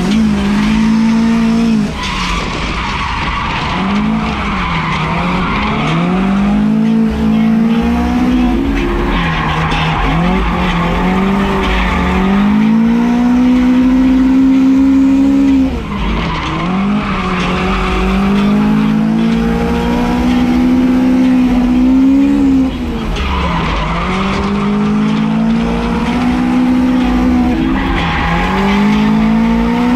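AE86 Corolla drift car's engine held high in the revs, dropping sharply and climbing back about five times as the throttle is lifted and reapplied through the drift. Tyre squeal runs over it.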